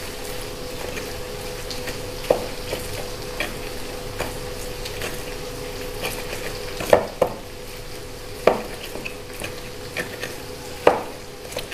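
Food frying in a pan on a gas stove, a steady sizzle, with a spatula stirring and knocking against the pan now and then, the loudest knocks about seven, eight and a half and eleven seconds in.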